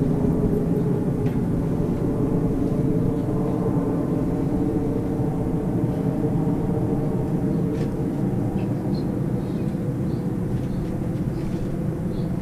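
Steady low rumble of outdoor background noise, even and unbroken, with a few faint short high chirps in the second half.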